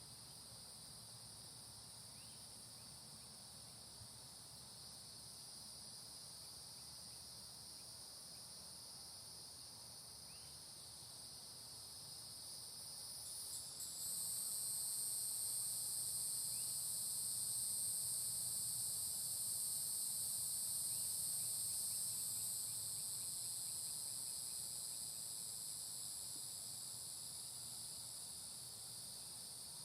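Chorus of daytime tree insects in a tropical forest, a steady high-pitched buzzing in two pitch bands. About halfway through, a louder, higher buzz comes in fairly suddenly, then slowly fades toward the end.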